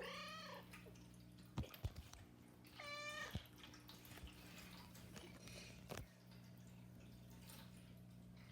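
Domestic cat meowing twice: a short rising-and-falling meow at the start and another short meow about three seconds in. A few faint clicks and a low steady hum are in the background.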